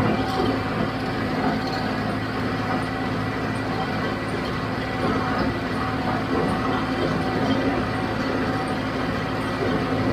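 John Deere 5055D tractor's three-cylinder diesel engine running steadily under load, pulling a John Deere 348 square baler, with the baler's machinery clattering along behind it.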